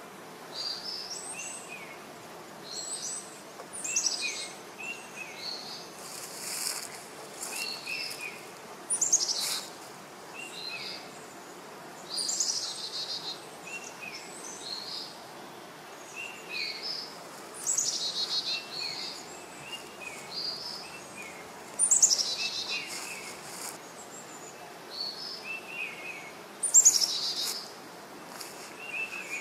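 Birds calling in the trees: short chirps repeated every second or two, mixed with louder calls that sweep downward in pitch, the loudest near the end.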